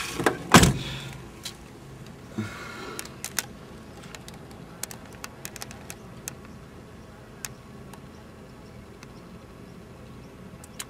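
A car door slams shut once about half a second in, then faint scattered ticks and a brief rustle over a quiet background.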